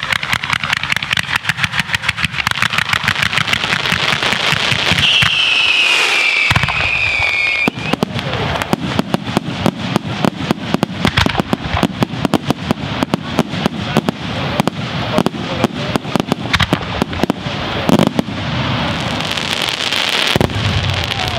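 Aerial fireworks going off in a rapid, continuous barrage of bangs and crackles. About five seconds in, a whistle falls slowly in pitch, and one especially loud bang stands out near the end.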